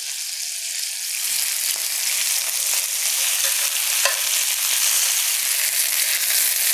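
Boneless chicken thighs sizzling steadily in hot olive oil as they brown in a cast-iron skillet, with a brief click about four seconds in.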